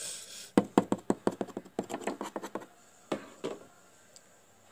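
Plastic toy figures handled by hand on a toy set: a quick run of about a dozen light taps and clicks over two seconds, then a couple more.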